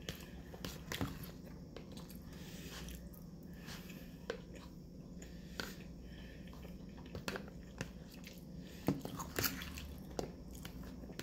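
Close-up chewing and mouth sounds of a person eating rice, beans and corn, with scattered sharp clicks of a metal fork scraping and tapping in a plastic tub, over a low steady hum.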